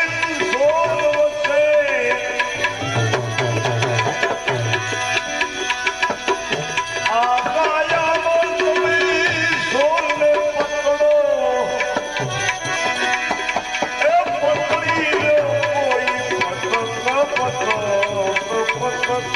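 Bhajan music led by tabla: quick drum strokes and low booming bass thuds under a melody that slides in pitch.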